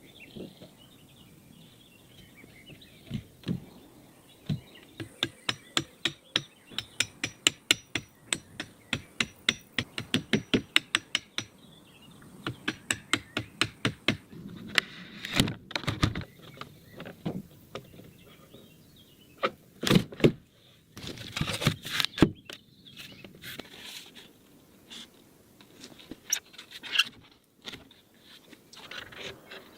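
Hand-tool blows on wood: a quick, even run of sharp knocks, about four a second, for several seconds, then slower, scattered knocks.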